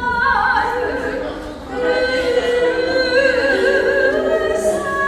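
A singing voice holding long, slow notes with vibrato. There is a short dip about a second and a half in before the next phrase.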